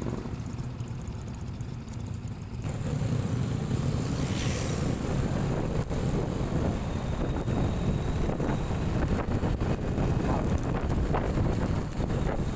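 Rumble of a vehicle in motion with wind buffeting the microphone, growing louder and rougher about two and a half seconds in.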